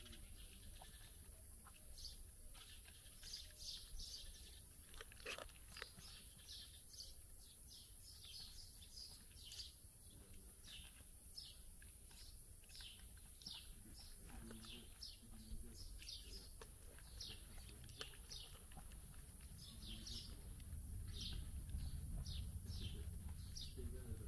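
Small bird chirping over and over: short, high, falling notes about one or two a second, faint, over a low steady rumble.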